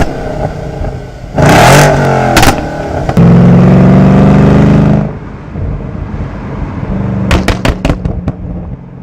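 Tuned Porsche Cayenne GTS engine being revved. It gives a quick blip about a second and a half in, is held at high revs for about two seconds, then drops back. As the revs fall, the exhaust gives a rapid burst of sharp pops and crackles near the end: overrun pops from the tune, with the catalytic converters removed.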